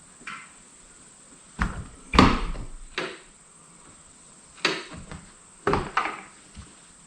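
A series of about seven separate knocks and clunks, the loudest about two seconds in, as the Jeep's top and body panels are handled and fastened.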